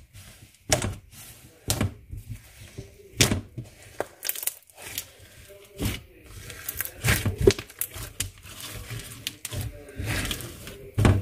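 Hands kneading a soft pink slime mixed with turquoise foam beads, giving irregular sharp sticky pops and crackles as the slime is pressed, folded and pulled apart over the beads.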